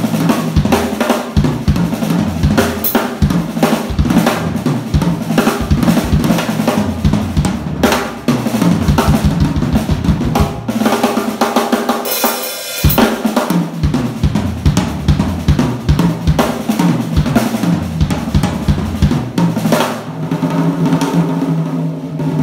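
Yamaha Tour Custom drum kit played in a steady groove of dense snare, bass drum and tom strokes with cymbals. The low drums drop out briefly about halfway through, then the beat resumes.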